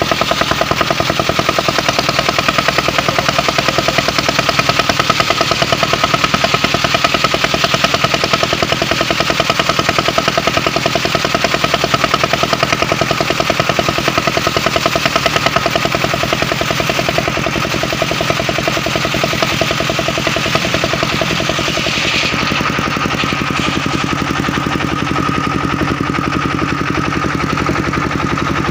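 Engine-driven portable circular sawmill running with a rapid pulsing beat, its blade sawing a mahogany log with a loud hiss of cutting. About three-quarters of the way through the cutting noise drops away and the engine runs on steadily.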